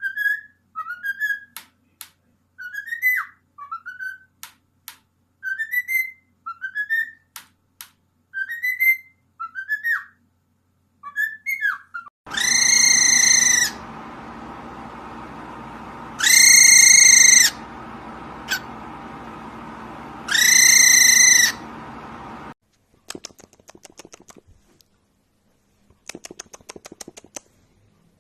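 Pet parrot whistling a run of short rising notes with clicks between them. Then come three loud, long, steady calls over a background hiss. Faint rapid crackling follows near the end.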